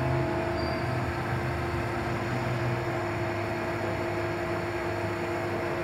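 South Bend Turn-Nado engine lathe running without load at about 370 RPM, with the carriage power feed engaged: a steady hum with a few constant tones.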